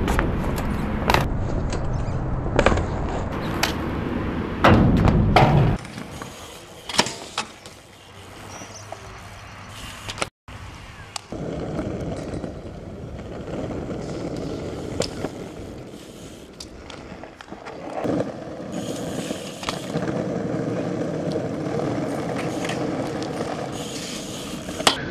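BMX bikes ridden on concrete: tyres rolling and scraping, with scattered sharp knocks and clatters. A loud low rumble fills the first six seconds and cuts off abruptly.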